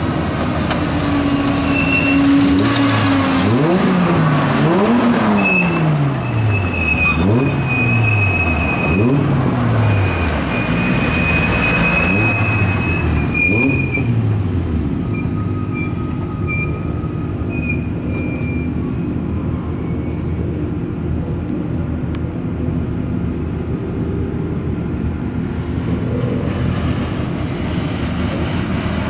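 A hillclimb race car's engine running hard, its pitch sweeping up and down again and again through the gears. After about fifteen seconds it fades into a steady background rumble.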